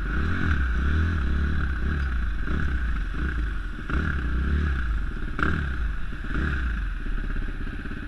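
KTM 350 SX-F four-stroke single-cylinder motocross engine heard from the rider's seat at low speed through the pits, its note rising and falling with the throttle several times, then settling steadier near the end.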